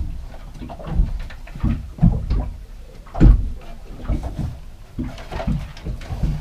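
Irregular low thumps and knocks, about half a dozen, with light rustling as hands work a cable into a cramped floor compartment. The heaviest knock comes about three seconds in.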